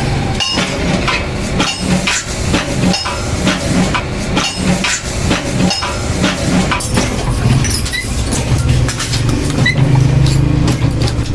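Metalworking workshop noise during small-scale tea kettle manufacture: a run of sharp knocks and clatter over a machine's steady hum, the hum growing stronger in the second half.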